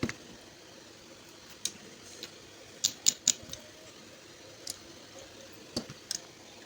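Small metal air-gun parts handled on a workbench: scattered sharp clicks and taps, with a quick run of three near the middle.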